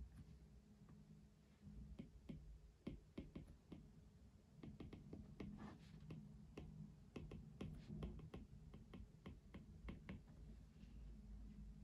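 Faint, irregular clicking and tapping, like work at a desk, over a low steady hum.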